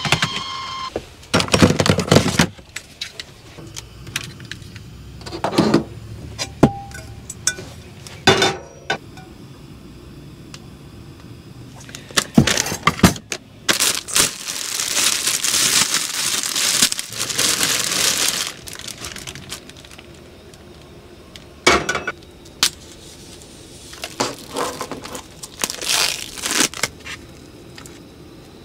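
Food-preparation handling noises: scattered clinks and knocks of dishes, utensils and cookware, with rustling of packaging, and a steady hiss for a few seconds about halfway through.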